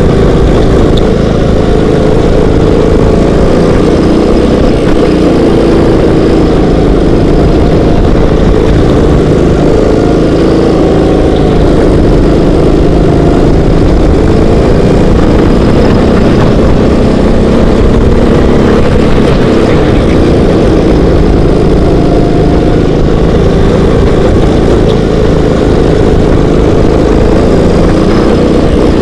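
Racing kart's engine running hard under load, heard loud and close from the kart itself, its pitch wavering up and down as the kart is driven through the corners.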